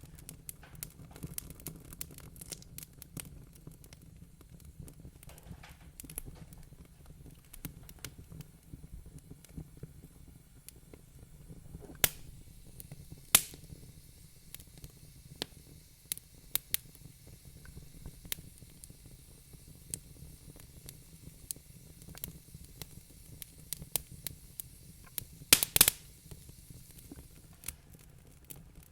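Wood fire crackling in a fireplace: a steady low rumble with irregular small crackles and a few louder pops, the loudest a quick cluster about three-quarters of the way through.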